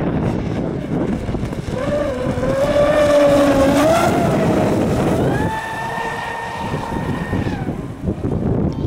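Radio-controlled Xtreme Xhibit offshore race boat running at speed, its motor giving a high whine. The whine comes in about two seconds in, rises slowly in pitch, jumps higher around the middle and fades out near the end, over a steady hiss of wind and water.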